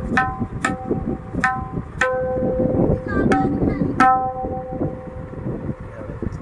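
Handmade tabla's wooden right-hand drum (dayan) struck with the fingers: about six sharp strokes in the first four seconds, each leaving a clear pitched ring that fades. Softer, less ringing taps follow near the end.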